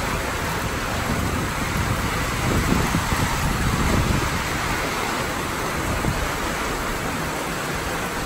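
Heavy rain pouring down steadily onto the marina water and the covered dock, a dense even hiss with some low rumbling beneath it.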